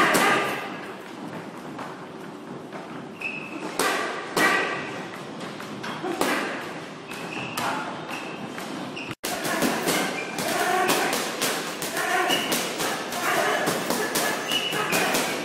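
Gloved punches landing on hanging heavy bags: a string of thuds at irregular spacing. The sound drops out for a moment about nine seconds in.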